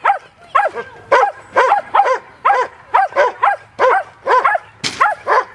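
A dog barking over and over in a steady run, about two to three short barks a second, with a single sharp knock about five seconds in.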